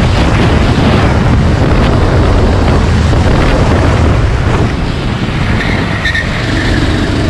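Go-kart engine running hard at full throttle down a straight, heard from on board with wind buffeting the microphone. About five seconds in it eases off as the kart brakes into a corner, and a brief high whine comes through.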